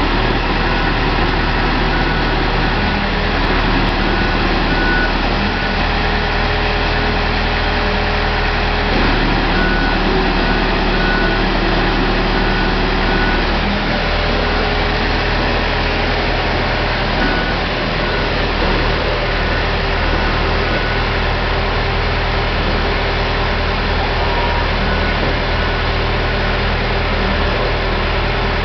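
Diesel engine of a mobile boat hoist running steadily as it lifts a motor cruiser out of the water in slings. A faint, high repeated beep comes and goes over it.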